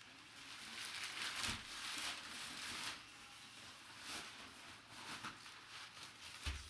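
Rustling and crinkling of packaging being handled, loudest in the first three seconds, with a soft thump near the end.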